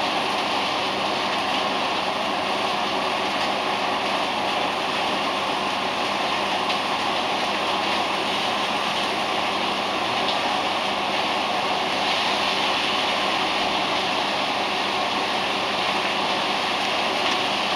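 Marinated tuna sizzling steadily in a hot frying pan.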